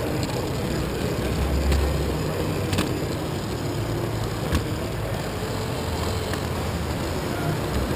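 Lego monorail train running along its track, heard close up from on board: a steady rumble of its motor and gears, with a few sharp clicks.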